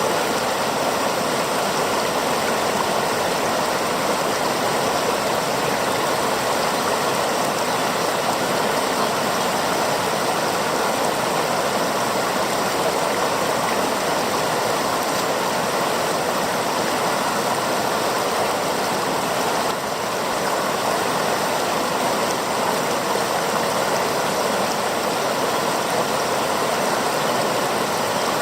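Mountain river rushing steadily, an even unbroken noise, recorded on an Olympus OM-D E-M10 Mark II camera's built-in microphone, the recording meant to show the camera's hiss.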